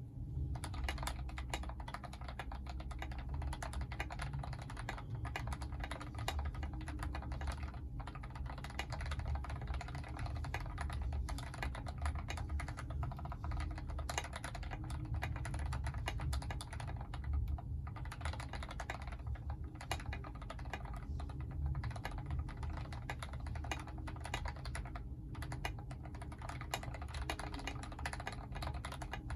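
Fast, continuous typing on a mechanical keyboard with lubed Gateron Ink Red linear switches, an aluminium plate and tall SA-profile PBT keycaps, giving a steady stream of keystrokes with a few brief pauses.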